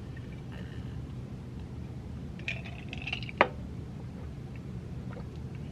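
Quiet drinking sounds: a sip of soda with a short, sharp wet gulp about three and a half seconds in, over a steady low hum.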